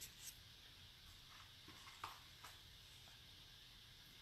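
Near silence: room tone, with a few faint short ticks, the clearest about two seconds in.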